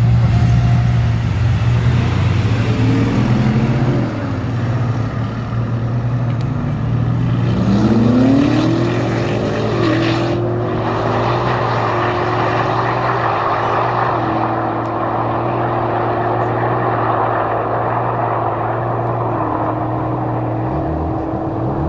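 Drag race between a Mercedes-Benz V-Class van with an AMG 4.0 L V8 biturbo and a BMW M5, accelerating hard from a standing start. An engine note rises steeply, drops at a gearshift about ten seconds in, then holds and steps down at further shifts, over a steady low drone.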